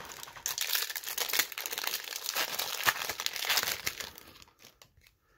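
O-Pee-Chee Platinum hockey card pack wrapper being torn open and crinkled: a dense crackle that lasts about four seconds, then thins to a few light clicks near the end.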